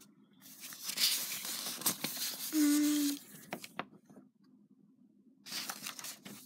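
Sheets of paper rustling and crinkling as they are handled, with a short hummed note from a voice about two and a half seconds in, a quieter stretch after it, and more rustling near the end.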